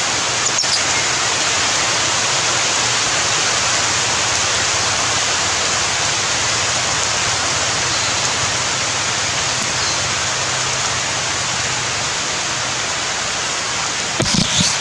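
A loud, steady hiss of even noise with no calls in it, with a couple of brief knocks near the end.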